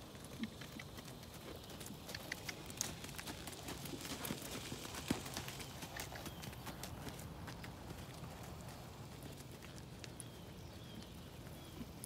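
A ridden horse's hoofbeats on sand arena footing, a run of irregular soft thuds and clicks that grows louder as the horse passes close by in the middle, then fades as it moves away.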